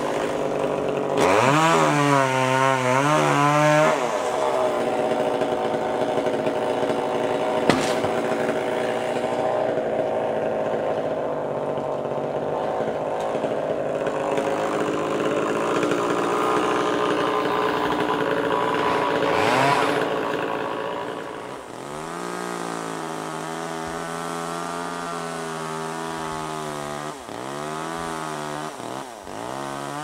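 Two-stroke chainsaw running hard, its pitch wavering up and down with the throttle and then holding high, as when cutting. About two-thirds of the way through it drops to a quieter, lower, slightly wavering run. One sharp click is heard about eight seconds in.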